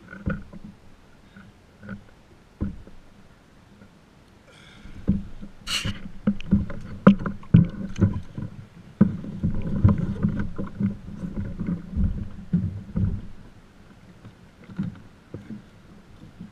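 Knocks and thumps against a kayak hull with some water splashing as a large red drum is lifted aboard and handled. The knocking is sparse at first, then dense and loud from about five seconds in until about thirteen seconds.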